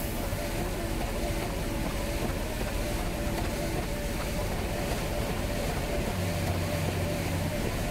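Heavy diesel concrete machinery, the concrete pump and mixer trucks, running steadily during the slab pour, with a wavering whine over the engine noise. A deeper hum joins about six seconds in for a second and a half.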